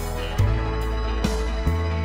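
Instrumental background music with sustained bass notes and plucked notes; no cooking sounds stand out.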